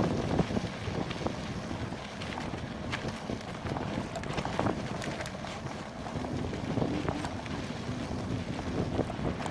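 Wind buffeting the microphone of a camera riding on a bicycle, with irregular rattles and knocks as the bike jolts over a rough trail.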